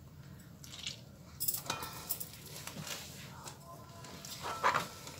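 Stainless steel box grater handled over a nonstick pan: faint scraping and a few light clicks and taps of metal as grated tomato and peel are cleared off the grater.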